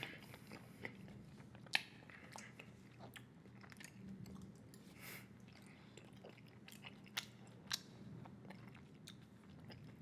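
Close-miked mouth chewing a large wad of bubble gum, with irregular sharp clicks from the mouth.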